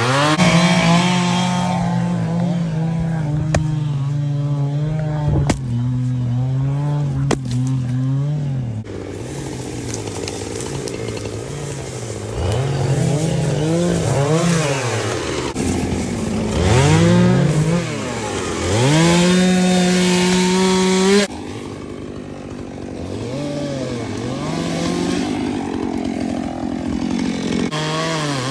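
Chainsaw cutting firewood, its engine pitch rising and falling over and over with the throttle. Near the end it holds high for a couple of seconds, then drops back sharply. A few sharp clicks come in the first several seconds.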